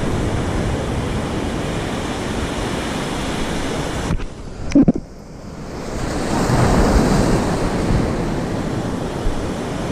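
Ocean surf washing onto the beach, with wind buffeting the microphone. A little over four seconds in, the sound drops away briefly with a short sharp knock, then a wave swells up again.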